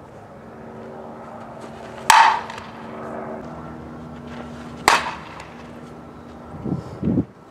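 Softball bat striking a pitched softball twice, about three seconds apart: each hit is a sharp, loud crack with a brief ring. A steady low hum runs behind.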